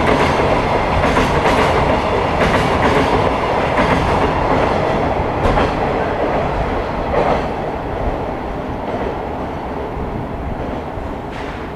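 Container wagons of a passing freight train running through a station at speed, the wheels clacking over rail joints. The noise fades in the second half as the tail of the train pulls away.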